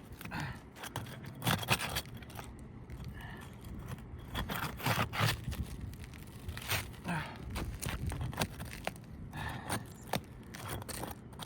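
Asphalt shingles being pried up off a roof: irregular scraping, cracking and tearing as the sealed laminate strips are broken loose. The shingles are brittle and crack as they lift.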